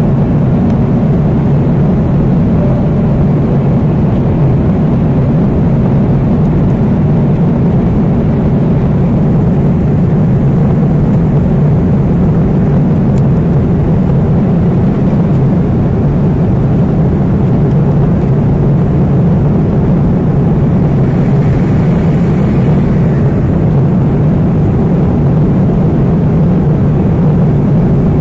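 Airliner cabin noise heard from a window seat in flight: the jet engines and rushing airflow make a loud, steady, low rumble.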